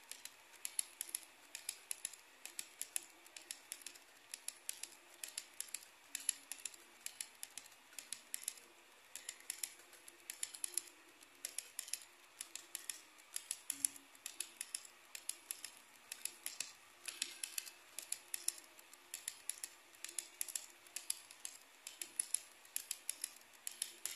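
Model freight train of hopper cars rolling past close by, its metal wheels clicking rapidly and irregularly on the track joints in quick clusters.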